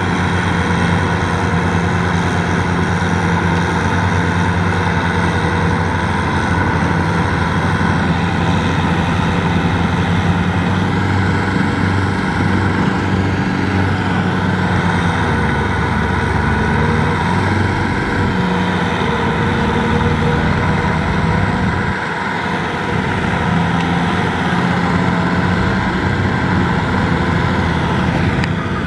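Kubota M6040SU tractor's diesel engine running steadily while pulling a loaded rice trailer through paddy mud, its note shifting a little midway.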